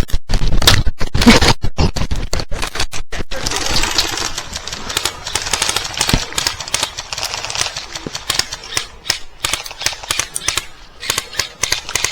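Airsoft guns firing: loud, rapid clattering shots in quick strings during the first few seconds, then scattered shots and volleys.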